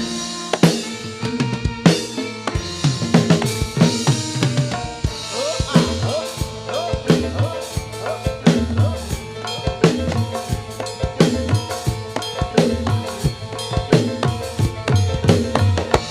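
Javanese gamelan music for a jathilan horse dance: drums beating a fast, busy rhythm over ringing pitched metal percussion.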